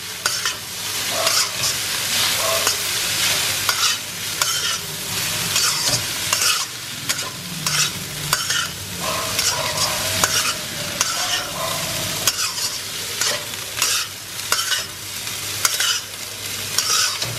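Fried rice being stir-fried in a wok: a metal spatula scraping and tossing the rice against the pan in quick, irregular strokes over a steady sizzle.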